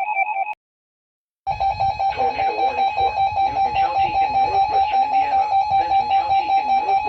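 A warbling electronic alert tone cuts off, and after about a second of silence a steady emergency-alert tone starts, with guitar music playing beneath it.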